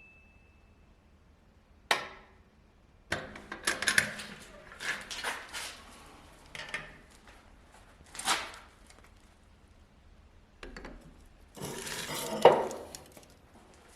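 Scattered clinks, knocks and scrapes of hard objects being handled and set down, starting about two seconds in, with the sharpest knock near the end.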